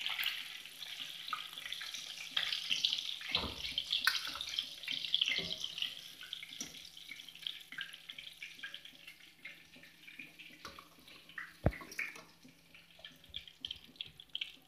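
Chicken pieces sizzling and crackling in hot oil in a kadai as they are lifted out with a metal spider strainer, with a few sharp knocks of the strainer against the pan. The sizzle dies down to a faint crackle in the second half.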